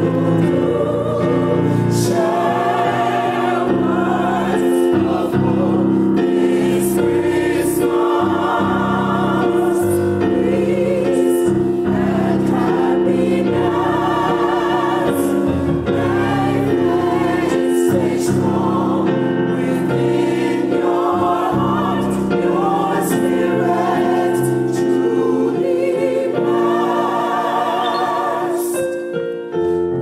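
Gospel choir singing in full harmony over instrumental backing, with a steady bass and scattered sharp percussion hits.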